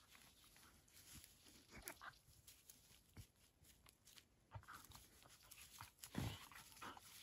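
Two dogs play-fighting in dry grass: faint scuffling and rustling, with a short, louder thump about six seconds in.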